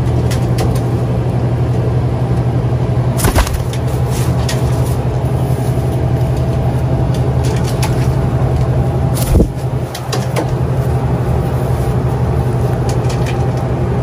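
Steady low mechanical hum, with a sharp knock about three seconds in and another about nine seconds in, and a few fainter clicks.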